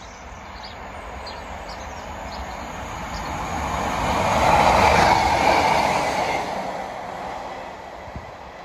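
A train passing by: its running noise grows steadily, is loudest about five seconds in, then fades as it moves away.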